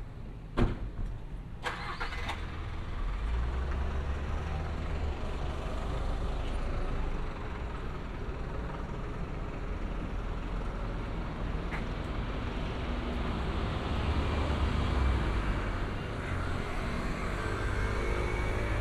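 Road traffic on a town street: cars passing with a steady low engine and tyre rumble that swells and eases. A few sharp clicks sound within the first two seconds.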